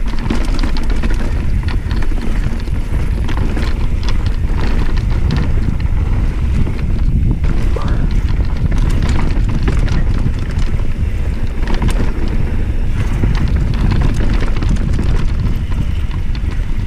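Wind buffeting the microphone as a Rurok Cordillera mountain bike descends a bumpy dirt singletrack, with a steady loud rumble and frequent clicks and rattles from the bike jolting over the trail.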